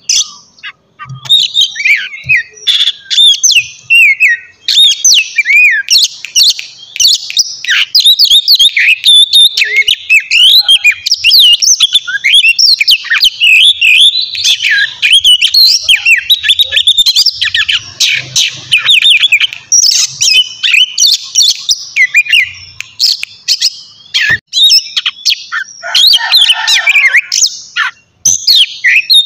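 Oriental magpie-robin (kacer) singing a long, fast, varied song of chirps and whistles with hardly a pause.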